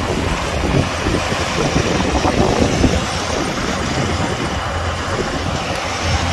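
Kubota DC-105X combine harvester running steadily under load, its engine hum mixed with the even noise of the cutting and threshing machinery.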